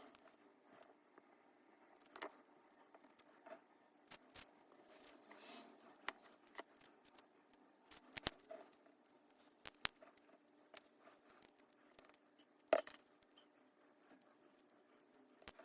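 Faint, scattered clicks and taps of small hand tools and cardboard puzzle pieces being handled while the pieces are glued back together, with one sharper click about three-quarters of the way through.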